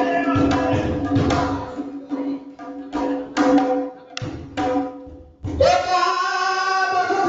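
A man's voice singing a folk song through a microphone, accompanied by strokes on a hand-played barrel drum. The singing pauses briefly twice and ends on one long held note.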